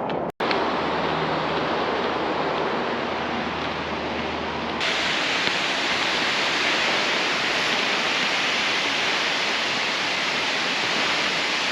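Steady rush of falling water from Multnomah Falls. It cuts out for a moment near the start, then turns brighter and hissier about five seconds in.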